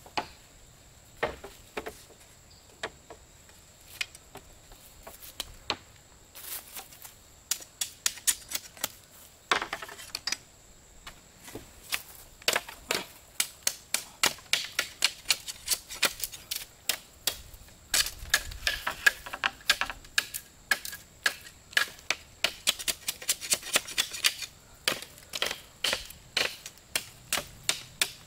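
Repeated sharp clicks and knocks. They come a few at a time at first, then fast and fairly even, about three to four a second, through the second half. A faint steady high tone runs underneath.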